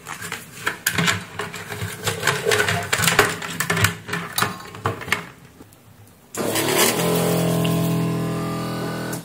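Wires and plastic housing parts knocking and clicking as they are handled. Then, about six seconds in, a vacuum desoldering gun's pump starts abruptly, hums steadily for about three seconds and cuts off.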